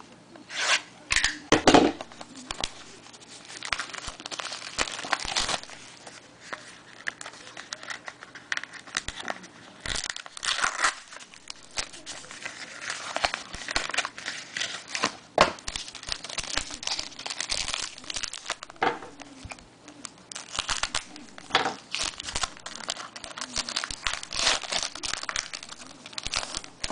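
A trading-card pack's wrapper crinkling and tearing as it is opened by hand, with irregular crackles and a few sharp snaps.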